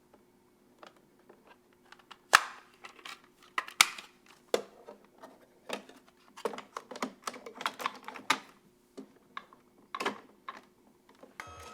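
A run of irregular clicks and taps, like small hard objects being handled, with two sharp louder clicks about two and a half and four seconds in. Music starts right at the end.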